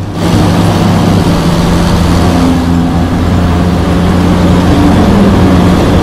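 Vehicle engine running hard at speed, loud and steady with a low hum. It cuts in abruptly just at the start.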